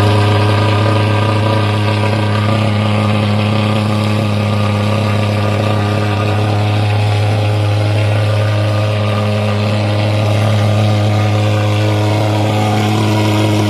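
Aspee thermal fogger's petrol pulse-jet engine running at a loud, steady, low-pitched drone, just after being started.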